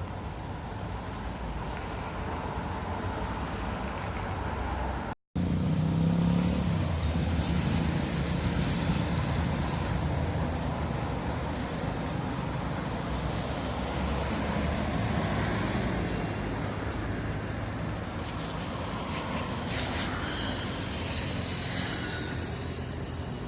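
Road traffic at a busy intersection: a continuous rumble of car and motorbike engines and tyres as vehicles pass, louder for a few seconds just after the sound cuts out for an instant about five seconds in. No horns sound.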